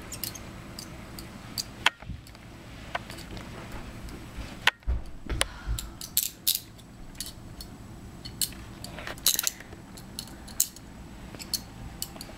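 Handcuffs and keys being handled: scattered sharp metallic clicks and clinks, with a couple of low thumps about five seconds in.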